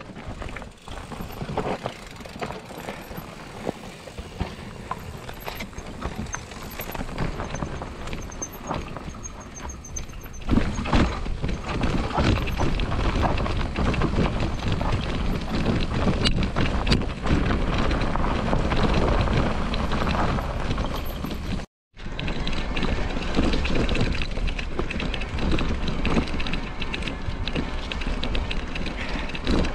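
Electric mountain bike being ridden over a stony trail, with tyres crunching on loose rock and the bike rattling. About ten seconds in the riding noise turns much louder and heavier, with a low rumble. Two-thirds of the way through, the sound cuts out for a moment.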